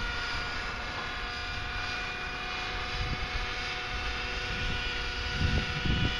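Align 600 Nitro radio-controlled helicopter's nitro engine and rotors running as a steady, high-pitched whine of several held tones, over a low rumble that swells briefly near the end.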